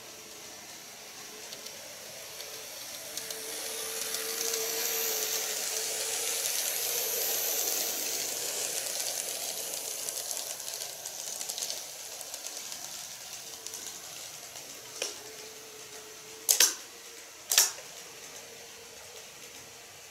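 Model of an E127-100 series electric train running past on the track: a steady whirring of motor and wheels that swells for several seconds and then fades. Near the end come a faint click and then two sharp, loud clicks about a second apart.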